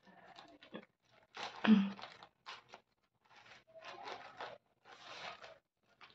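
Packaging being torn open and rustled by hand, in several short scratchy bursts, the loudest about two seconds in.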